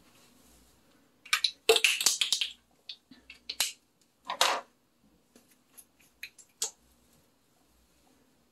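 Small makeup items being handled: a flurry of sharp clicks and short rustles about a second in, another rustle a few seconds later, then a few scattered clicks.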